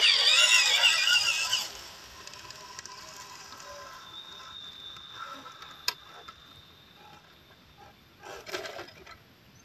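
Electric motor and gearbox of an MN99s RC crawler whining high, wavering in pitch with the throttle. It is loud for about the first second and a half, then faint, with a thin steady high whine from about four seconds in. There is a sharp click near six seconds and a brief scrabbling noise around eight and a half seconds as the truck climbs the rock.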